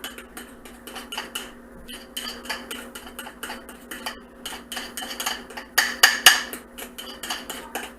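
A spoon and fork beating pancake batter in a bowl: rapid, irregular clinks of metal against the bowl, loudest about six seconds in. A faint steady hum runs underneath.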